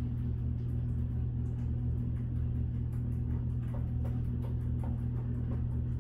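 A steady low electrical hum, with a few faint light ticks scattered through it.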